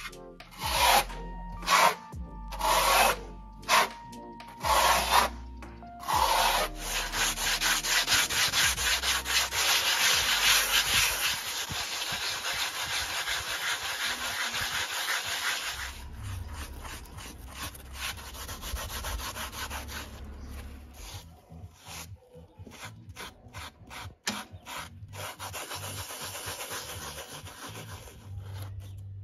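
Fresh cement render on a chimney being worked by hand: a few short trowel scrapes, then a sponge rubbed over the render in continuous back-and-forth strokes, quieter in the second half.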